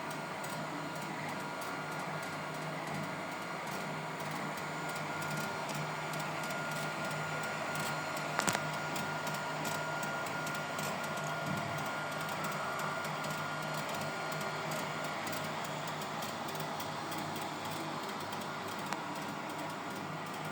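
3D printer running: a steady whir from its motors and fans, with a faint thin whine that stops about three quarters of the way through, and one sharp click about eight seconds in.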